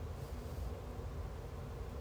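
Low, steady hum and faint hiss with no distinct events: the background noise floor of the streamer's room and audio chain during a pause in talk.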